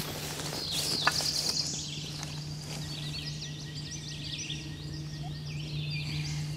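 Songbirds singing in spring woods: a fast high trill about a second in, then many short chirps and whistled notes. A steady low hum runs underneath, and a sharp click sounds about a second in.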